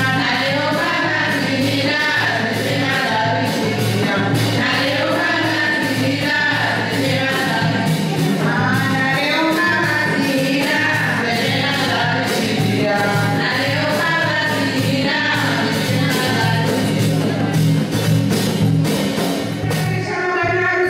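Women singing through microphones, one voice leading and others joining, over a steady drumbeat.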